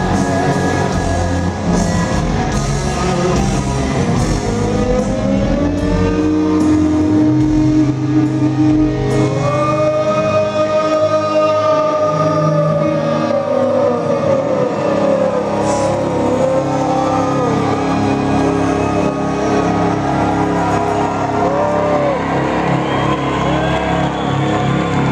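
Live rock band playing: electric guitar, bass and drums, with long sliding held notes about halfway through.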